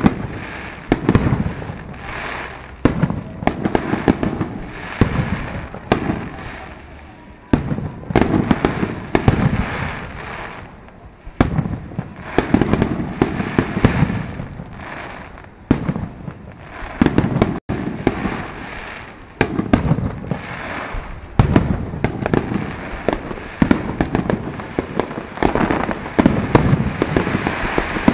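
Aerial firework shells bursting in quick succession: sharp bangs about one every second or two, each trailing off in a low rumbling boom and crackle, with a short lull about two-thirds of the way through.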